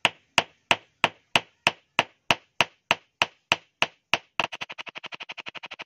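Claw hammer striking a steel umbrella-rib wire laid on a stone, flattening its end: sharp, evenly spaced blows, about three a second. About four seconds in, the blows give way to a much faster run of lighter taps, about ten a second.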